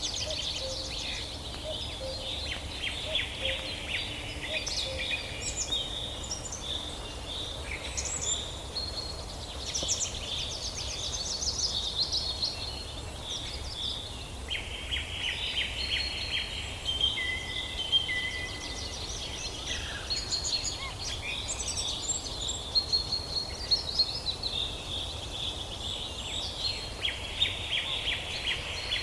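Several songbirds singing at once, a steady chorus of overlapping chirps, rapid trills and short whistles, over a low steady background noise.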